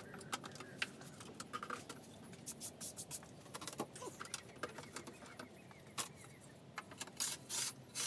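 Irregular clicks, taps and light metallic rattles of parts and packaging being handled, with some rustling.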